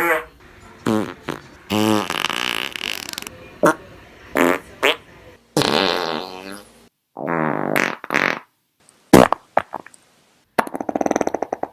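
A string of fart sound effects, about a dozen in a row with short gaps between them. Some are long with a clear pitch, some are short pops, and a rapid sputtering one comes near the end.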